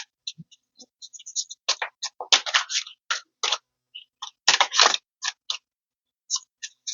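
Tarot cards being handled and pulled from the deck: irregular light clicks and flicks of card stock, some in quick clusters.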